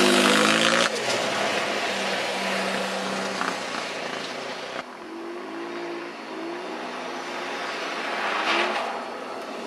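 Car engines revving up and down as cars slide sideways through corners on a snowy ice track, with a hiss of tyres and snow beneath. The sound changes abruptly about a second in and again near the middle as one car gives way to another.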